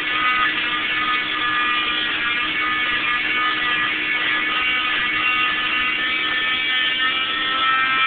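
Electric oscillating cast saw with its dust-vacuum hose running steadily at a high whine as it cuts through an orange fiberglass arm cast.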